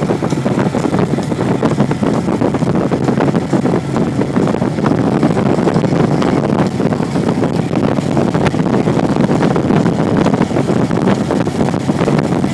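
Heavy wind buffeting over the microphone of a moving motorcycle, a loud, steady rushing with constant flutter, with the ride's engine and road noise blended underneath.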